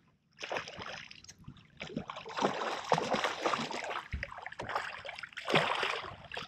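Water splashing in irregular bursts as a hooked striped bass thrashes at the surface beside a boat, loudest about three and five and a half seconds in.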